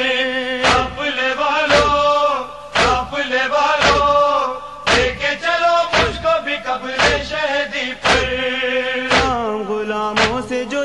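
Nauha chanting: a voice holding a drawn-out, wordless lament line over rhythmic matam chest-beating, heavy thumps about once a second.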